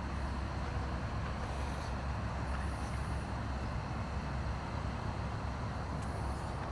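Steady low hum of an electric blower fan running continuously to keep a giant inflatable cat decoration inflated.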